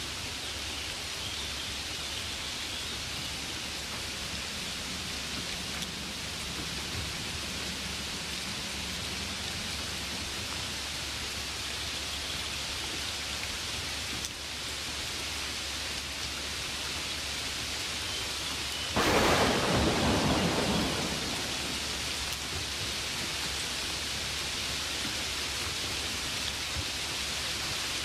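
Steady hiss of rainfall, broken about two-thirds of the way through by a sudden loud clap of thunder that fades away over about two seconds.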